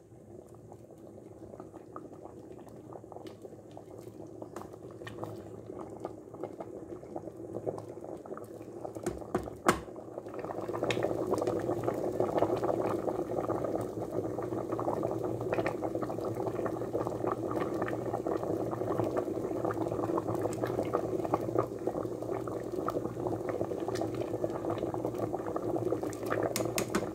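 A pot of speckled-bean stew (feijão rajado) bubbling at a boil, a steady wet bubbling that grows louder about ten seconds in. A few sharp knocks of a utensil against the pot come just before it grows louder.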